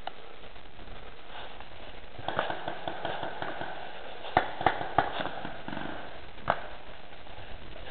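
Paintball marker shots: three sharp pops about a third of a second apart a little past halfway, and one more about a second and a half later. Softer clicks and rustling come before them.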